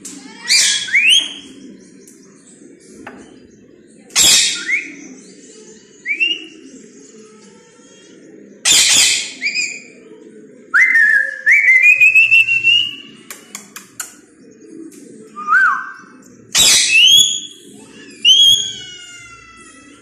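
Rose-ringed (Indian ringneck) parakeet giving about five loud, harsh screeches, with rising and falling whistled calls between them. A steady low hum runs underneath.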